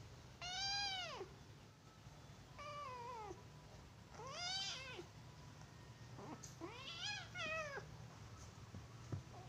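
Kitten meowing four times during a play fight, each high-pitched meow bending up and then down in pitch, a second or so apart.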